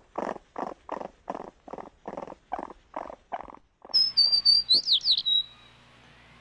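An animal calling in a steady series of short harsh notes, about three a second, that fade over three seconds. It is cut off and followed by a bird's brief high whistled song with quick trills, ending about a second and a half later.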